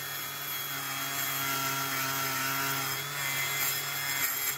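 Black & Decker Wizard rotary tool running steadily with a small wire brush wheel scrubbing the bare metal of a stripped diecast toy car body. A steady motor hum sits under the rubbing hiss of the bristles.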